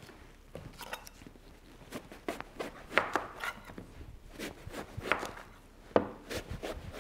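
Knife cutting an eggplant on a plastic cutting board: irregular knocks of the blade meeting the board, a few louder ones around the middle and near the end.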